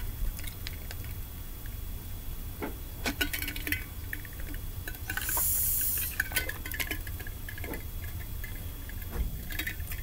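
A metal drink bottle being handled and drunk from. A few light clicks and clinks come around three seconds in, then a short hiss about five seconds in as it is tipped up to drink.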